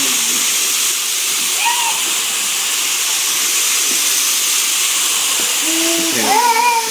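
A steady hiss runs under everything. Near the end a baby gives a short, pitched vocal sound that rises and then falls.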